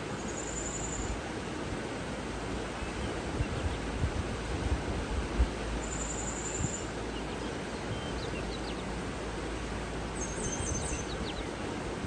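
Steady rushing of water with a small bird giving a short, high, thin trill three times, several seconds apart. A few low thumps come in the middle.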